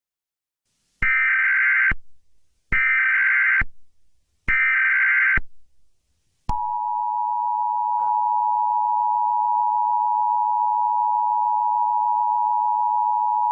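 Emergency Alert System tones. Three short bursts of SAME header data, each just under a second with brief gaps between, are followed about six and a half seconds in by the long, steady two-tone EAS attention signal that opens an emergency alert.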